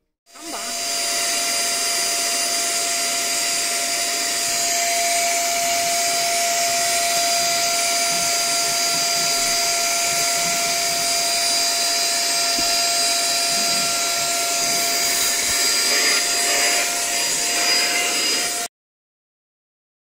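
Inalsa QuickVac dry canister vacuum cleaner running, its nozzle sucking over car floor carpet: a loud, steady rush of air with a constant motor whine. It comes on about half a second in and cuts off suddenly near the end.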